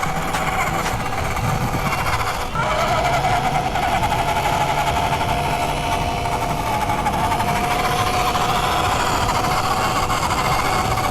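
Electric motor and gearbox of an MN Model MN222 1/10-scale RC crawler whining as it drives. About two and a half seconds in, the whine drops in pitch and gets louder, then slowly climbs again.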